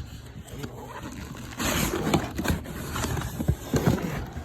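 Cardboard box and packaging being handled: rustling and scraping with a few light knocks as a boxed car shifter is pulled out, louder from about a second and a half in, over a low steady hum.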